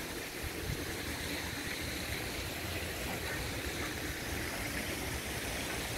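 Steady rushing of water, an even noise that holds level throughout.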